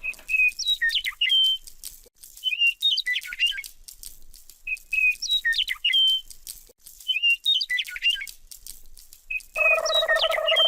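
Electronic bird chirping from a toy bird gun's sound chip: the same short twittering phrase repeats about every two and a half seconds, five times. About nine and a half seconds in, a steady buzzy tone joins it.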